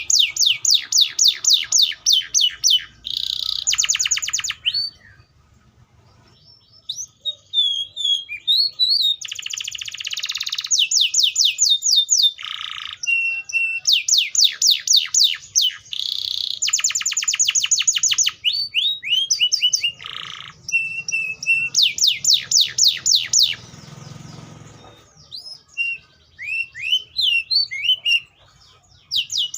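Canary (Serinus canaria) singing: runs of fast, high, repeated down-slurred notes alternating with buzzy rolling trills, broken by short pauses. There is a longer lull about five seconds in.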